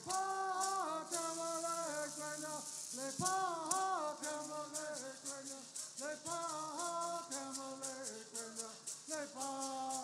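Bird singing: a group of men sing in unison, phrases rising and falling, while shaking gourd rattles in a steady beat, with a quick continuous shake near the start.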